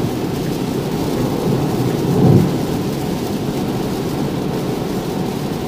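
Cabin noise of a Tesla Model 3 at highway speed in heavy rain: a steady low rumble of tyres on the wet road and rain on the car, with a brief louder swell about two seconds in.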